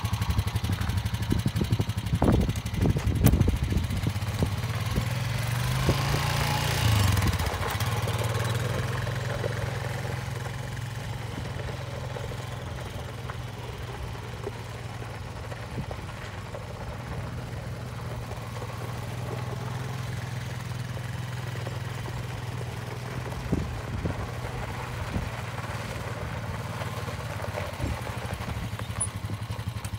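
2019 Honda Rancher TRX420 ATV's 420 cc single-cylinder four-stroke engine running, with a few knocks in the first seconds. It revs up and back down about six seconds in, then runs steadily at low speed while the ATV is ridden, growing fainter as it moves off.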